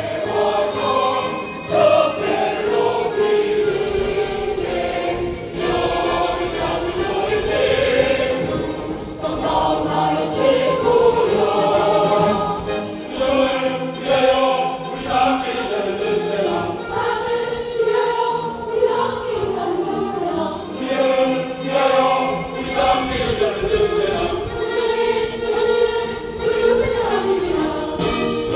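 Mixed choir of women's and men's voices singing a slow, sustained piece in parts.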